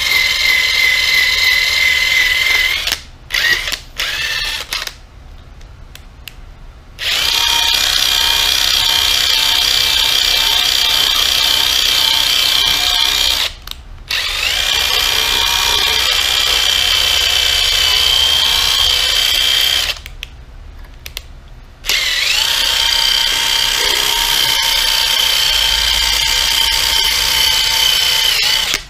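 Electric buffing tool whining as it polishes a clear plastic gauge-cluster lens. It runs in several stretches of a few seconds with short pauses between, and its pitch rises each time it spins back up.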